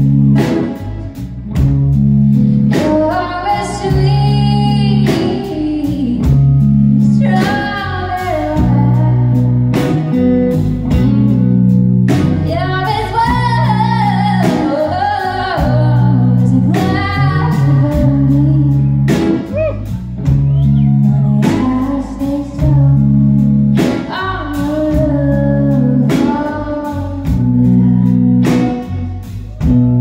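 Live country band: a woman singing lead, with a man's voice joining her, over electric and acoustic guitars and drums.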